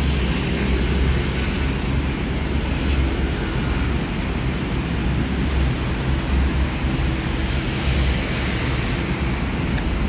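Steady outdoor background noise: wind buffeting the microphone in a low, fluctuating rumble, over the constant hum of traffic on an elevated highway.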